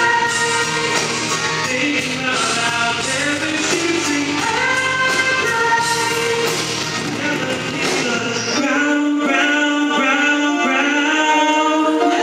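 Live pop-rock band with a male lead singer. About three quarters of the way through, the bass and drums drop out, leaving the voice over a lighter accompaniment.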